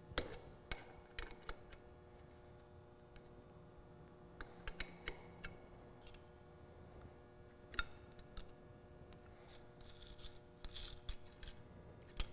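Light metallic clicks and clinks of a steel open-end wrench on a tubing nut as the stainless tubing is loosened from the regulator's fittings, in scattered single ticks. A short burst of metal rubbing and scraping comes near the end.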